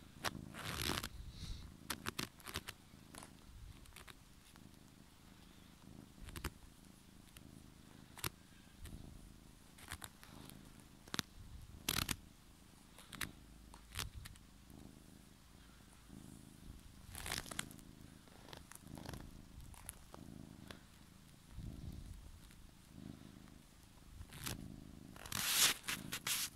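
Ginger domestic cat purring steadily while being stroked, held close to the microphone. Scattered short rustles and clicks run over the purr, with louder rustling about two thirds of the way through and again near the end.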